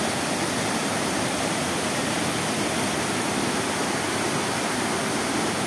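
Waterfall pouring into a river: a steady, even rush of falling water.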